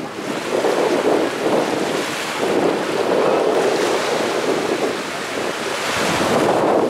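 Wind buffeting the microphone over the wash of sea waves on the shore, a steady rushing noise that swells and eases in gusts.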